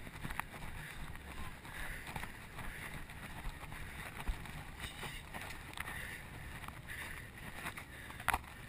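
Muffled sloshing and splashing of muddy water as a racer wades through an obstacle, heard through a chest-mounted GoPro. The water swells roughly once a second, with scattered small knocks against the camera.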